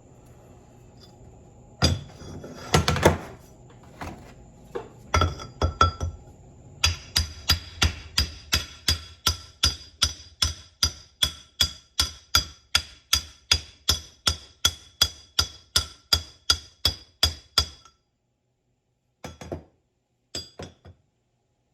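A hammer strikes a socket used as a driver, knocking a part down into a 1978 Ford power steering box. A few uneven blows come first, then a steady run of ringing metal-on-metal strikes at about two and a half a second. The run stops abruptly, and a few separate taps follow.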